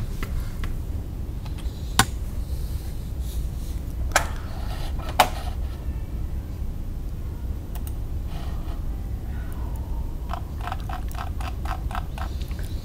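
Printed-plastic and metal parts of a 3D printer's X-axis assembly being fitted by hand onto its upright rods: three sharp clicks and knocks, then near the end a quick run of about eight light clicks, over a steady low hum.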